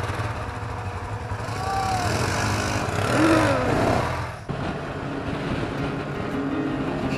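Side-by-side buggy engine running, rising and falling in pitch twice as it revs. About four and a half seconds in it cuts abruptly to a steadier engine drone.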